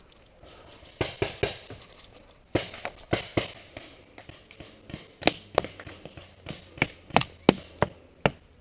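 Paintball markers firing: a dozen or so sharp pops in irregular bursts of two to four shots.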